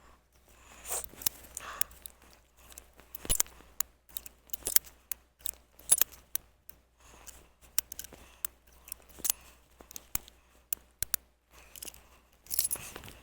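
A string of sharp, irregular metallic clicks from a Cimarron .45 Long Colt single-action revolver being handled, its cylinder turned and chambers checked after a misfire.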